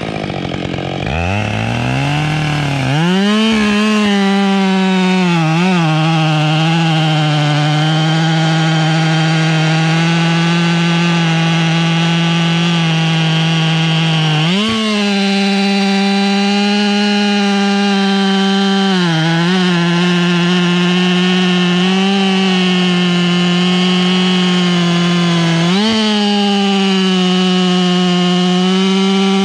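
Husqvarna 572 XP two-stroke chainsaw bucking through a thick red beech trunk. The engine falls away, revs back up about two seconds in, then runs steadily under load in the cut, its pitch sagging and recovering briefly a few times.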